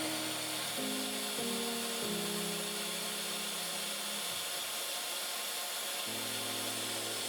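Mifen ionic high-speed hair dryer running, its 110,000 RPM motor blowing a strong, steady hiss of air, with background music of slowly changing chords.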